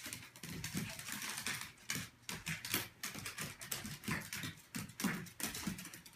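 A small dog's claws clicking and tapping rapidly and irregularly on a hardwood floor as it trots and scampers about, with duller knocks of its paws among the clicks.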